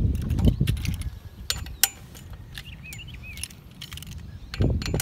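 Scattered sharp metal clicks of a 6 mm Allen key working the pinch bolts on a BMX stem, with a louder knock of the bike being handled near the end.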